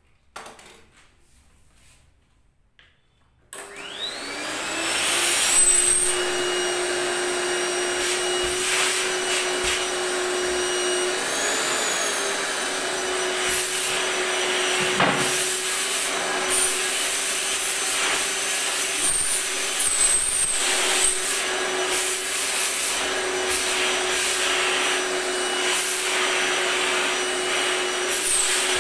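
A Krisbow canister vacuum cleaner switched on about three and a half seconds in, its motor spinning up with a rising whine and then running steadily. The note shifts now and then as the hose and wand are handled. Before it starts there are a few quiet handling clicks.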